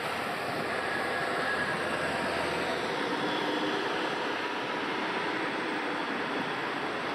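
Street traffic: a steady rush of passing vehicle engine and tyre noise, swelling just as it begins and then holding level.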